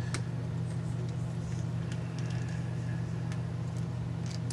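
A steady low hum, with a few faint light clicks of a laptop's plastic case and parts being handled.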